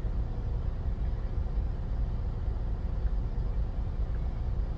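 Semi-truck diesel engine idling, a steady low rumble heard from inside the cab.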